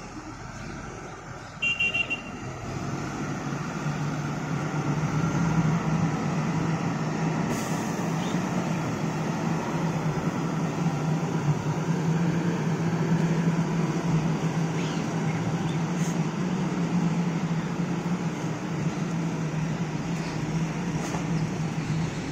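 SANY STC800 truck crane's diesel engine running steadily as the crane drives over sand, growing louder over the first few seconds. A brief horn beep sounds about two seconds in.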